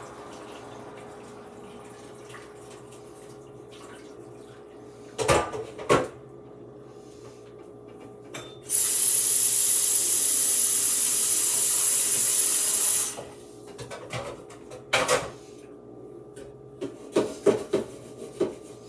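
Kitchen tap running hard into a sink for about four seconds, then shut off abruptly. A couple of knocks come before it and a few after, as pots and dishes are handled.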